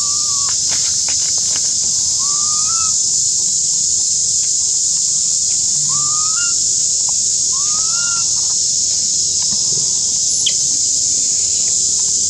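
Steady high-pitched drone of insects buzzing, with a short whistled call that rises in pitch repeated about four times, every two to four seconds. A few faint clicks sound near the start.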